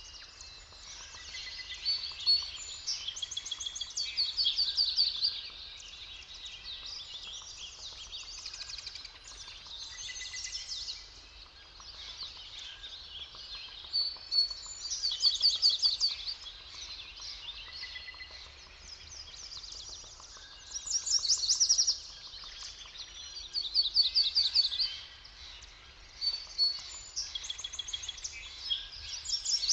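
Songbirds singing in a forest: loud, fast trilled phrases a second or two long recur every few seconds over continuous softer chirping from other birds.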